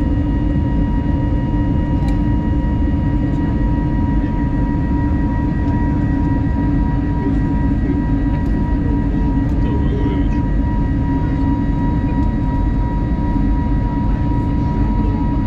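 Steady cabin noise inside an Airbus A320neo climbing after takeoff: a dense low rumble of engines and airflow with a steady high whine on top.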